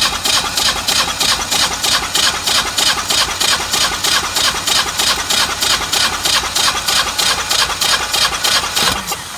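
Honeywell/Generac standby generator engine cranking on its starter with the spark plugs out during a compression test, making even pulses about five a second, with the gauge on the rear cylinder. The pulses stop just before the end. The rear cylinder reads about 150 psi, good compression, showing the earlier oil overfill did no damage.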